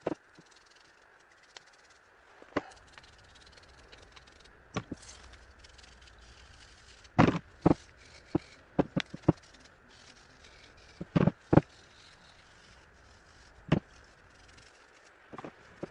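Scattered knocks and clatters of hard objects being handled and set down, some single, some in quick runs of two or three, with quiet between; the loudest come about a third of the way in and again about two thirds in.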